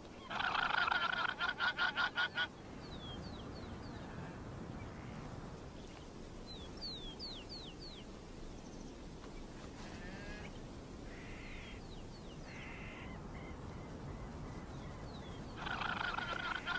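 Guanaco alarm calls: a rapid, stuttering bray of about five pulses a second, once at the start and again near the end. Between them are a low steady rush of wind and little groups of short falling bird chirps.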